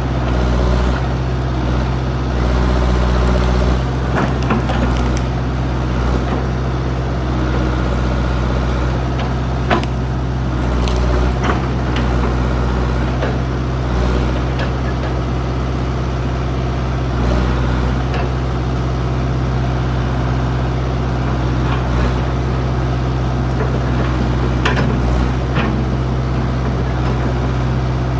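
Old backhoe's engine running steadily under load, with occasional sharp metal clanks from the bucket and arm working.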